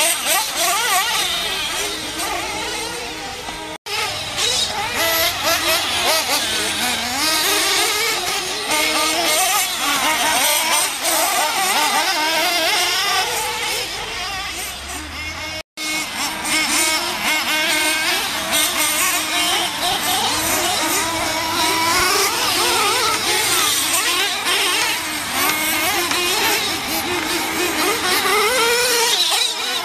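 Nitro-engined RC truggies racing, their small glow-fuel engines whining and revving up and down without a break. The sound cuts out for an instant twice, at about 4 and 16 seconds in.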